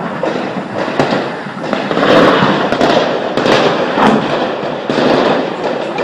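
Small-arms gunfire: many sharp shots in quick, irregular succession, overlapping into a continuous crackle.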